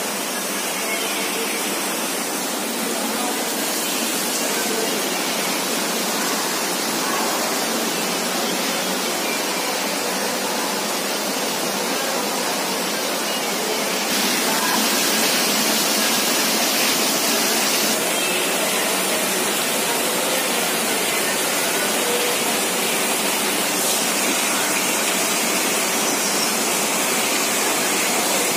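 Steady loud rushing noise with no distinct events, slightly louder from about fourteen seconds in.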